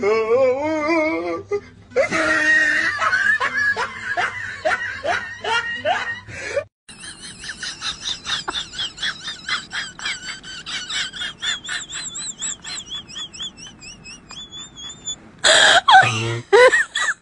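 People's voices laughing and calling out, with rapid pulsing laughter and a loud outburst near the end.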